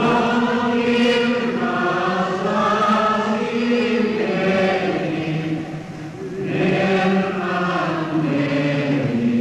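A large congregation singing an old hymn of the Finnish Awakening (herännäisyys) revival movement: many voices in slow phrases of long held notes, with a short break for breath about six seconds in.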